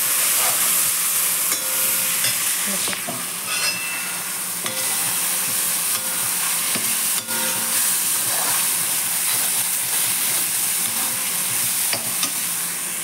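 Spinach nimona sizzling as it fries in a pan on the stove, with a spoon stirring it and now and then ticking against the pan.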